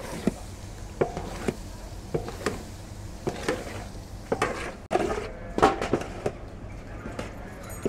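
A long wooden paddle knocking and scraping against the side of a large metal cooking pot as a batch of spiced grains is stirred. The knocks are sharp and irregular, about two a second, over a steady low hum.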